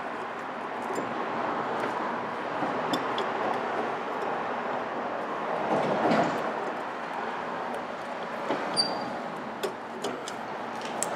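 Light metallic clicks and clinks of a car's rear sway bar bushing bracket being hooked back onto its mount by hand, over a steady background noise, with a louder spell of scuffing about six seconds in.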